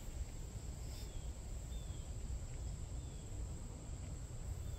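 Outdoor insect ambience: a steady high drone, with short falling chirps repeating about once a second, over a low rumble.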